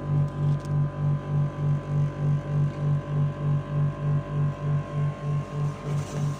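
Low hum throbbing about four times a second, with a steady higher tone held over it.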